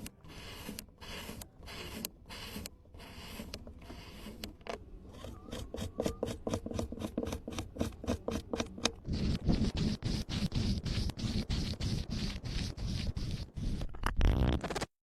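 Kinetic sand being scraped and rubbed in repeated short strokes. The strokes quicken to about four or five a second midway and grow louder in the last few seconds, then stop abruptly near the end.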